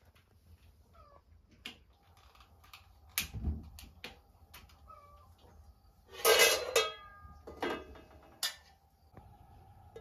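Metal cookware clinking and knocking against a small floor-level gas burner as pots and utensils are handled, with one loud clatter and ringing about six seconds in, followed by two sharper knocks.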